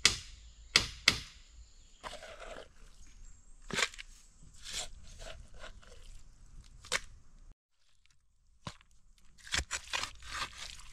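Sharp knocks, three in the first second or so, then scattered crunching and rustling handling sounds. The sound drops out suddenly about seven and a half seconds in, and a quick cluster of knocks and crunches follows near the end.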